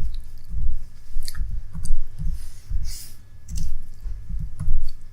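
Typing on a computer keyboard: irregular key clicks, each with a dull low thump, a few strokes a second.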